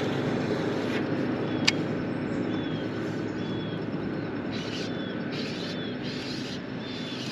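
Baitcasting reel cranked in short bursts of high whirring while a hooked bass is played on the rod, over a steady low hum. One sharp click a little under two seconds in.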